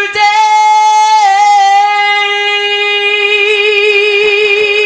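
A female singer holding one long, steady note with a slight waver, in a slow gospel song.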